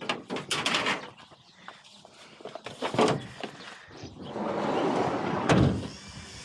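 A few clicks and handling noises, then a car door swung shut with a thump about five and a half seconds in.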